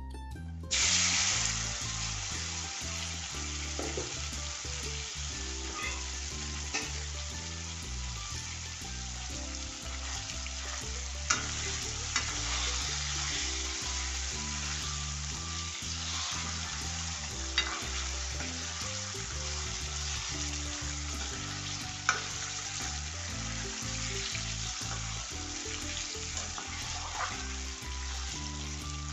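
Lapsi (Nepali hog plum) fruits hitting hot oil in a kadai with a sudden loud sizzle less than a second in, then frying steadily while a metal ladle stirs them, knocking against the pan a few times.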